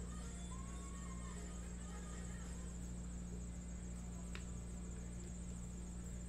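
Room tone: a steady low electrical hum under a constant high-pitched whine, with one faint click about four seconds in.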